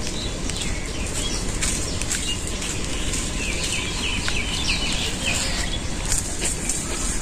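Small birds chirping, with a quick run of short calls in the middle, over a steady rushing background with scattered clicks.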